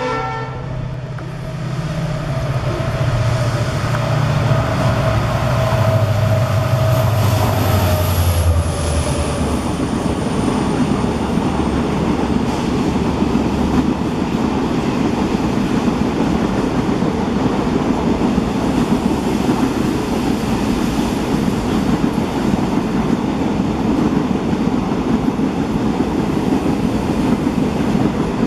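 An EMD GT46MAC (WDG-4) diesel locomotive, with its 16-cylinder two-stroke engine, runs past. Its horn cuts off at the very start, and its engine drone drops in pitch over the first several seconds while a high whine slides down. The express's coaches then roll by with steady wheel rumble and clickety-clack.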